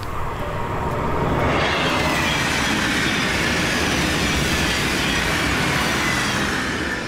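A vehicle passing by: a broad rushing noise that swells about a second in, holds with faint high squealing tones, and fades near the end.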